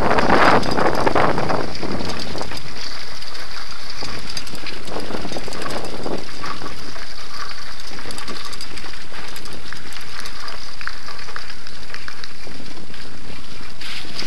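Handbike rolling over cobblestones, its frame and cables rattling and clattering without a break. Wind buffets the microphone for the first couple of seconds.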